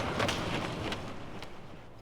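Recorded sound effect played from a vinyl record, fading out: a rumbling noise with a few faint knocks dies away steadily over about two seconds.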